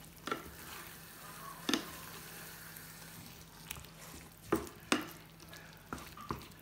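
Wooden slotted spatula stirring a thick tomato-and-vegetable sauce in a nonstick frying pan, knocking sharply against the pan about six times, over the steady sizzle of the sauce cooking.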